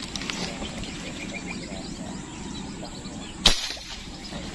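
A single sharp shot from an airgun rigged for dart fishing with a line spool, about three and a half seconds in, firing a line-tethered dart at a fish in the water.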